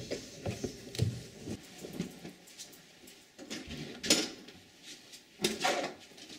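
Footsteps going down wooden stairs, about two steps a second, then clothing rustling and sharp clicks as a door is unlatched and opened.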